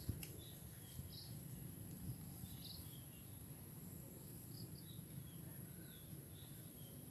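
Faint outdoor ambience: scattered short bird chirps over a steady, high-pitched insect drone.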